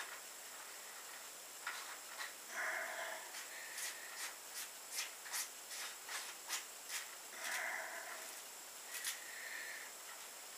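Faint handling noise from a copper reflux still's column piece being worked on by hand: a run of light clicks, two or three a second, through the middle, with a few short soft hissing sounds between.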